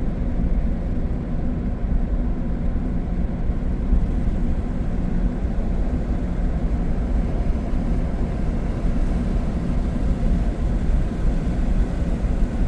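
Steady low road and engine rumble inside a moving RV cruising on the highway.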